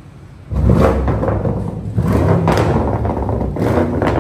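Twin-turbo V8 of a 2021 BMW M550i revved hard through its muffler-deleted exhaust, which has added resonators and quad tips. It goes from a low idle rumble to a sudden loud blare about half a second in and stays loud, with a few sharp cracks.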